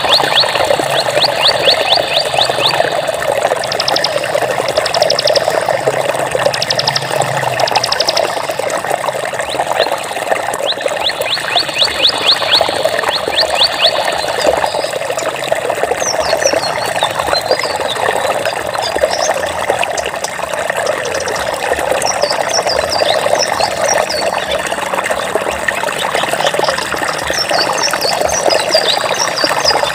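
Water flowing steadily with a constant rushing trickle. High, rapid trills come over it in the first few seconds and again around 10 to 14 seconds in, followed by scattered short high chirps through the second half.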